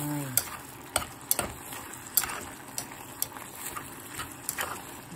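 Sliced pork and onions sizzling in a stone-coated frying pan as chopsticks stir them, tapping against the pan about twice a second in an uneven rhythm.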